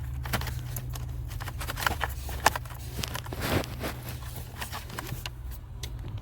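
Irregular plastic clicks, knocks and scraping as the tabs of the cabin air filter cover behind the glove box are pulled and the filter is worked out of its housing.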